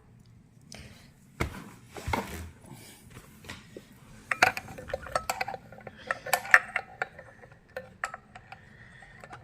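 Light, irregular clicks and clinks of a screwdriver and loose parts being handled while a Henry vacuum cleaner is taken apart, with a few sharper knocks in the second half.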